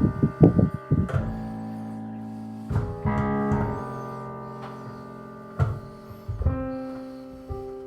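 Slow instrumental music: a quick run of notes, then chords struck every second or two and left to ring and fade.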